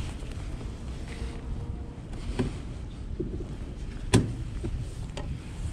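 Handling noise on a plastic kayak: scattered knocks and taps as a caught tautog is held and unhooked, the sharpest about four seconds in, over a steady low rumble.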